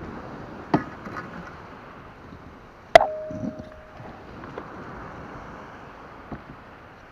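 Knocks from a kayak sail's mast, a surfcasting-rod tube with plastic rings, being handled: a smaller knock about a second in, then a loud sharp knock about three seconds in that rings briefly on one tone, over steady wind hiss.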